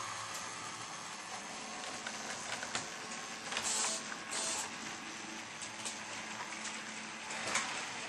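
OO gauge model freight train running past: a small diesel locomotive model hauling container wagons, with a steady motor hum and scattered light clicks of the wheels over the track, plus two brief hissy rattles about three and a half and four and a half seconds in.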